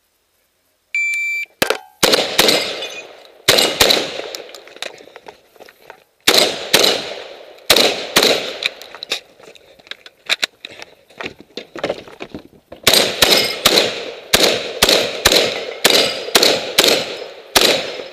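Shot timer's start beep about a second in, then a Saiga 12 semi-automatic 12-gauge shotgun with a compensator firing about thirty shots. The shots come in rapid strings broken by short pauses, with the fastest run near the end.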